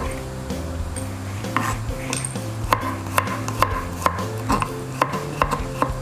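Chef's knife slicing garlic cloves thinly on a plastic cutting board: sharp taps of the blade on the board, about two a second from about a second and a half in, over background music.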